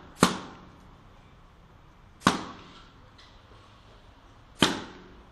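Three balloons bursting one after another, each a sharp bang with a short ringing tail, about two seconds apart.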